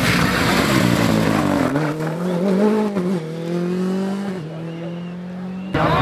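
Rally car engine revving hard, its pitch rising and falling through gear changes. It then holds a steadier note while growing quieter as the car moves away, and cuts off abruptly just before the end.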